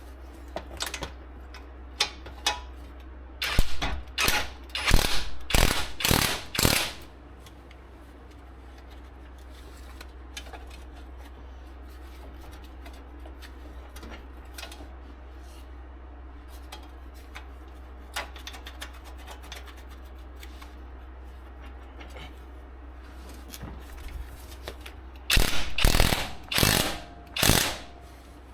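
Hand ratchet wrench turning bolts on a car's wheel-hub assembly: two runs of quick ratcheting strokes, five or six a few seconds in and four or five near the end, with a few light clicks between them.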